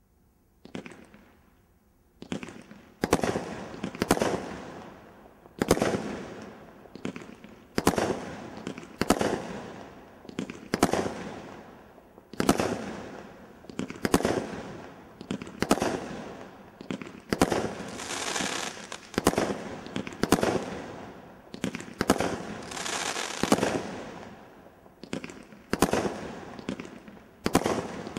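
Stealth Fireworks 'Seismic Blast' multishot firework cake firing a loud shot about once a second, each launch and burst trailing off. Some shots carry long crackling tails.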